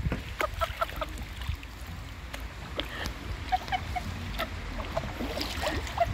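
Kayak paddles dipping into and lifting out of the water, with short plinking drips falling from the blades and small splashes.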